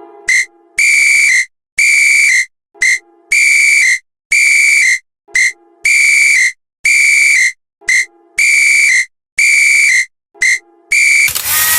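A whistle blown in a repeating pattern of one short blast and two longer ones, four times over. Near the end, a burst of hissing noise.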